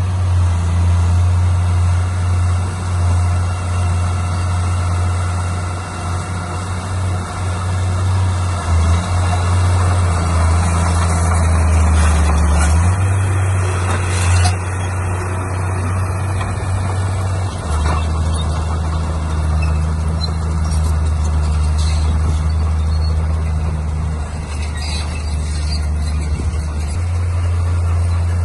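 Heavy diesel earthmoving machinery running steadily under load: a deep engine hum that steps up and down in pitch several times as the revs change. Some higher-pitched metallic noise rises around the middle.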